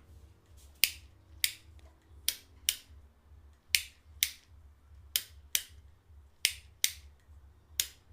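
Sharp clicks from a 1990s bicycle's mechanism, coming in pairs about half a second apart, six pairs in a steady rhythm.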